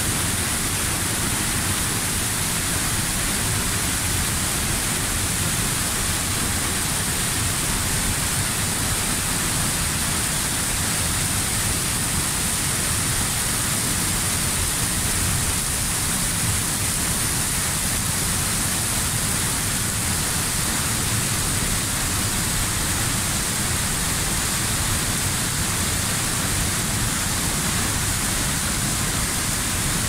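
Steady rush of a waterfall pouring down onto rocks and a shallow pebbly pool at close range, with spray spattering down.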